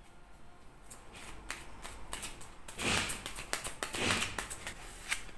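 A deck of oracle cards being shuffled by hand: a run of light card clicks and flicks, with two louder papery swishes near the middle.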